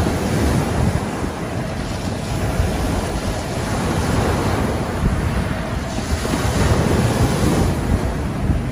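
Waves rolling onto the beach, with wind buffeting the microphone in a steady low rumble.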